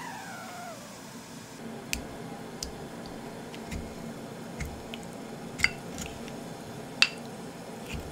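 A wooden spatula knocking against a small glass food container while pickled plums (umeboshi) are pressed and pitted inside it: a string of light taps, with two sharper clinks that ring briefly, about five and a half and seven seconds in.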